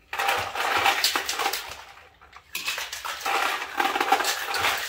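Ice rattling inside a metal cocktail shaker shaken hard, a rapid clatter in two bouts with a short pause about two seconds in.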